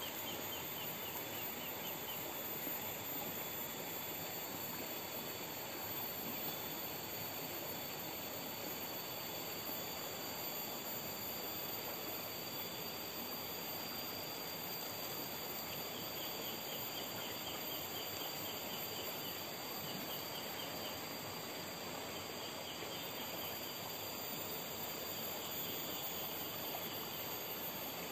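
Riverside forest ambience: a steady high insect drone over an even background hiss, with short runs of rapid chirping coming and going.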